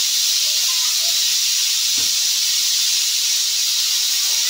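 Aluminium pressure cooker hissing steadily as steam escapes past the weight valve on its lid: the cooker is under pressure.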